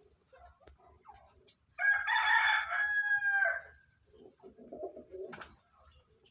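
A rooster crowing once: a single loud call of about two seconds that dips in pitch at the end, followed by a softer, lower sound.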